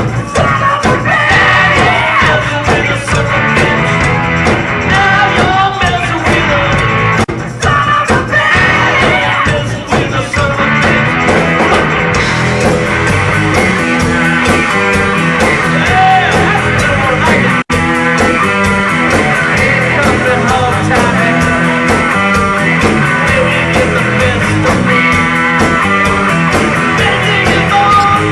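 Rock song played by a band with electric guitar and drums, with a wavering lead line in the first part that sounds like singing. The sound cuts out for an instant about two-thirds of the way through.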